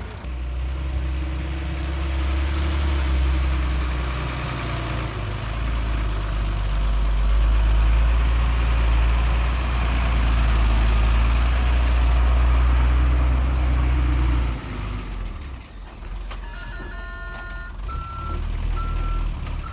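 Heavy diesel earthmoving machinery running hard with a deep steady engine sound, which drops off about three-quarters of the way through. Near the end a reversing alarm beeps about once a second.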